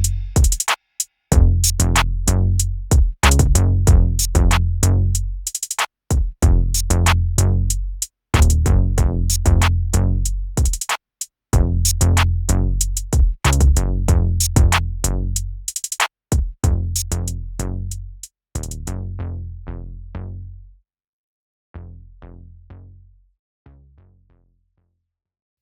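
Electronic bass-test music: drum-machine beats over heavy deep bass, broken by short pauses, thinning out and fading to silence near the end.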